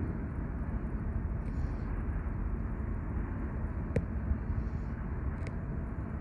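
Outdoor harbour ambience: a steady low rumble, with a short sharp click about four seconds in and a fainter one near the end.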